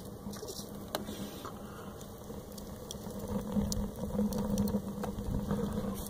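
Small wood-fired rocket stove burning hard: a steady low rushing rumble from its draft, with scattered clicks and crackles, growing louder about three seconds in.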